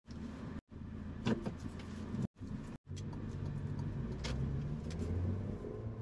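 Car engine running with road noise, heard from inside the cabin as the car drives off; the engine note grows louder about halfway through. There are a few light clicks and knocks, and several short silences early on.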